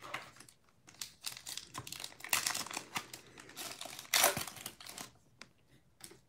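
A Donruss Optic trading-card pack's foil wrapper being torn open and handled: a quick run of crackles over several seconds, loudest about four seconds in.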